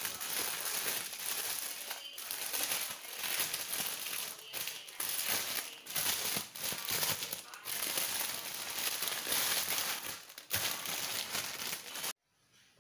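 Clear plastic wrapping crinkling and rustling as hands pull it off a backpack. The sound is irregular and continuous, and cuts off suddenly near the end.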